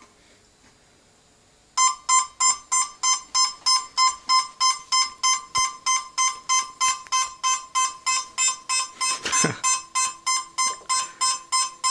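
Background music: an electronic keyboard playing a quick run of evenly repeated notes, about four a second, which drops out for the first couple of seconds and then comes back in.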